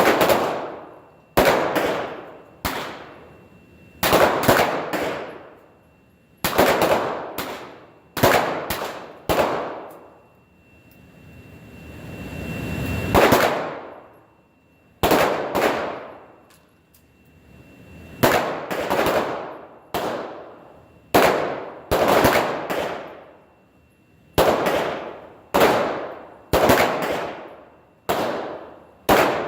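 Pistols firing on a shooting line, a string of single shots, sometimes in quick pairs, each trailing off in a long echo. There is a lull about ten seconds in, with a rising rush of noise before the shots resume.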